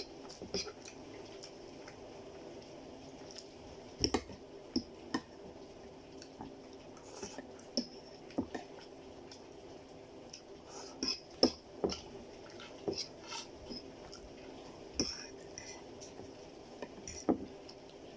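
Eating from a plate: scattered light clinks and clicks of a utensil against the dish, with soft mouth sounds of chewing noodles, over a steady low hum.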